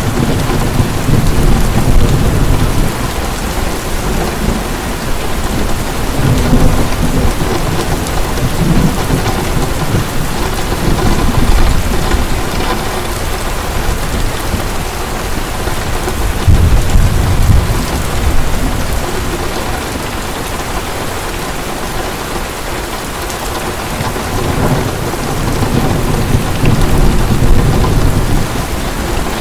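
Heavy rain falling steadily, with low rolls of thunder swelling and fading several times, the strongest near the start, a little over halfway through, and near the end.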